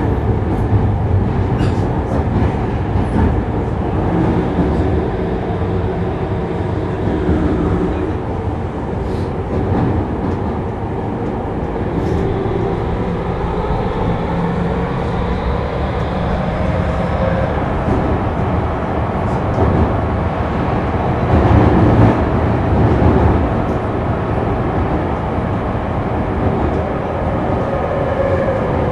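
Tokyu 2000 series electric train running through a subway tunnel: its VVVF inverter and traction motors whine over the steady rumble of the wheels on the rails, with a few short clicks along the way.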